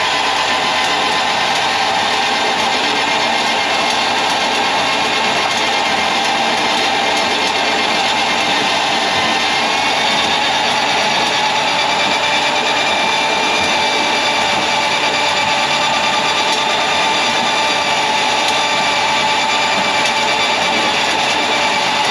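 Electric drain snake (power auger) running steadily to clear a clogged kitchen sink drain. It makes a continuous motor sound whose pitch wavers slightly without stopping.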